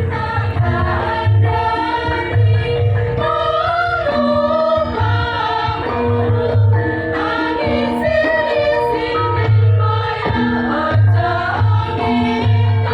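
Women's choir singing held, wavering notes over instrumental accompaniment with a regular bass beat.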